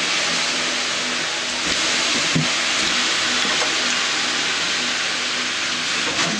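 A loud, steady hiss that starts abruptly and holds level throughout.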